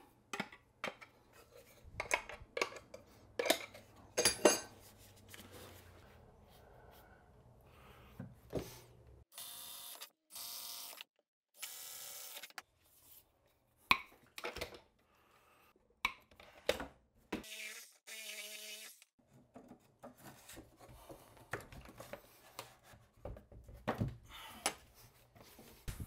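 Metal clinks and clicks of brass PEX fittings, a go/no-go gauge and a PEX crimp tool being handled, with one sharper click partway through and a few short scraping rubs.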